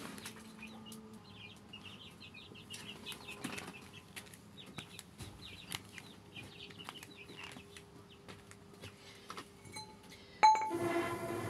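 Chickens clucking and chirping in short, soft, repeated calls, with scattered light clicks. About ten seconds in, a sharp knock, then a loud buzzy droning tone starts.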